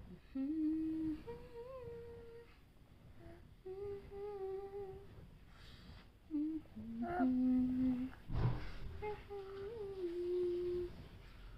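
A woman humming a slow tune in five short phrases of held notes to lull a baby to sleep, with a soft bump about eight seconds in.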